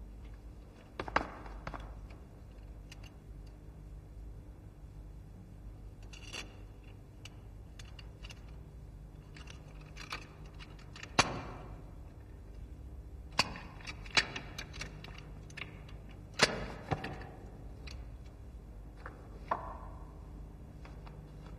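A lock being worked open with metal tools or keys: about ten sharp metallic clicks and clinks, scattered and irregular, a few ringing briefly, over a low steady hum.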